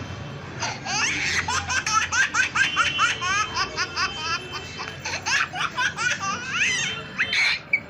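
Laughter sound effect: a long run of quick, high-pitched laughs, several a second, each falling in pitch, dying away near the end.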